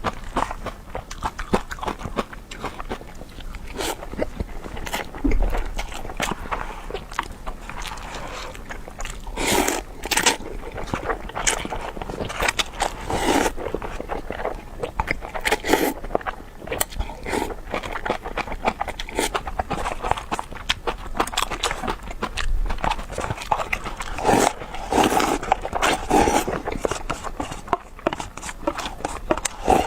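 Close-miked eating sounds: a person biting and chewing food, with a dense run of quick wet clicks, smacks and short bursts.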